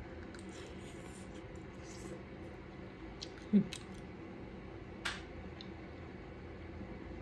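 Eating and food-handling sounds: faint crackles and mouth noises, a sharp knock about three and a half seconds in followed by a lighter click, and a short crackle about five seconds in.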